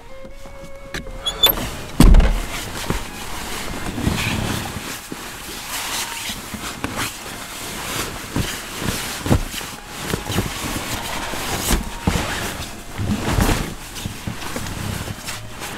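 Rustling of a nylon down sleeping bag and shuffling of a body settling into it inside a small car's cabin, with irregular bumps and knocks against the seats. A heavy thump about two seconds in is the loudest sound.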